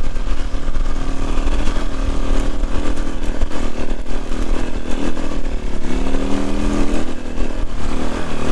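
Heavily loaded dirt bike's engine pulling in second gear up a rocky trail, revs rising and falling, heard on board over the rattle of the ride.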